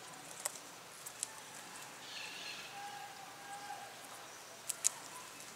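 Faint outdoor background with a few sharp snaps, two of them close together near the end, as green onion stalks are snapped off by hand.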